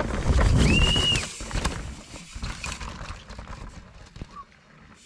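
A downhill mountain bike rattling and knocking past over rough ground, loudest in the first second and then fading away. A short, high, steady squeal comes about a second in.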